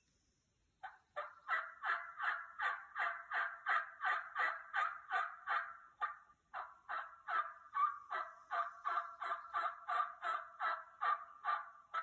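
A long run of turkey yelps, raspy notes at about three a second, with a brief pause about six seconds in.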